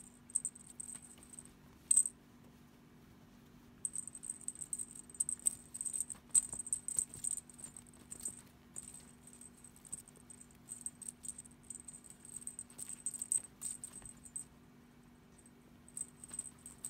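Small bell on a cat-teaser toy jingling in irregular bursts as a kitten bats and tugs at it, with two short pauses.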